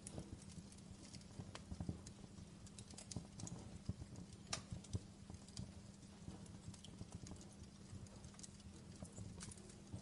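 Wood fire crackling: irregular sharp pops and snaps, a few louder than the rest, over a faint steady low hum.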